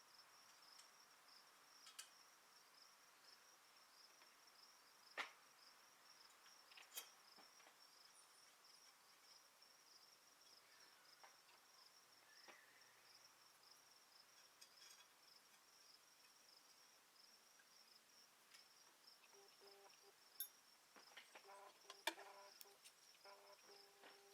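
Near silence, with a faint continuous high cricket trill and a few soft clicks scattered through.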